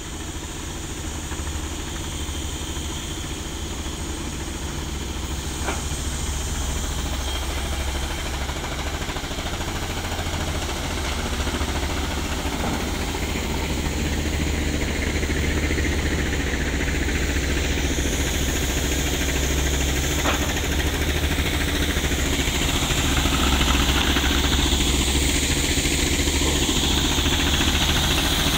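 An engine running steadily with a low rumble, growing slightly louder toward the end, with a couple of sharp wooden clacks as planks are handled.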